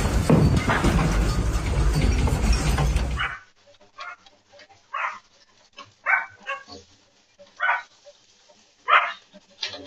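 A loud, even noise heavy in the low end cuts off about three seconds in. It is followed by a dog barking about six times, short separate barks roughly a second apart.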